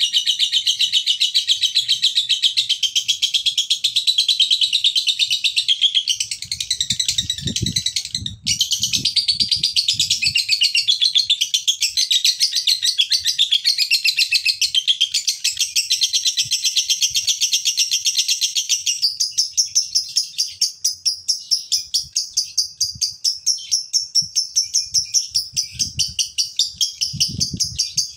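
Male lovebird's long, unbroken 'ngekek' chatter: a fast, high-pitched trilling run that breaks off for a moment about eight seconds in, then carries on and turns into a more evenly pulsed chatter in the last third.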